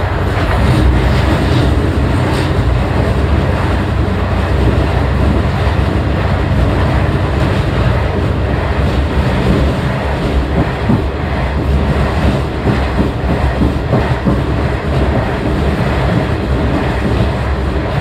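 Diesel railcar running steadily at speed, heard from inside at the rear of the car: a continuous low rumble of engine and wheels on rail, with a few faint clicks of the wheels over the track.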